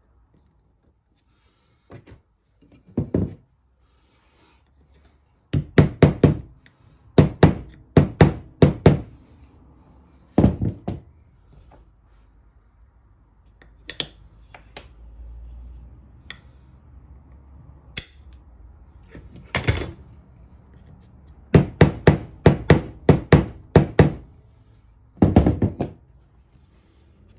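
Sharp knocks on an oak board, in quick runs of three to five and some single taps, as a round magnet is tapped down into its drilled recess.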